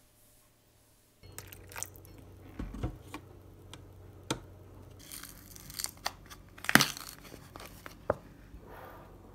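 Close handling sounds of things being moved about: crinkling and rustling with scattered clicks and knocks, and one sharp knock about two-thirds of the way through.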